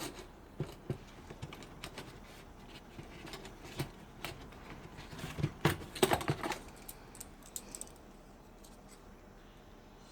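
Scattered small clicks, taps and rattles of a gas soldering iron and solder being handled, busiest about five to six and a half seconds in.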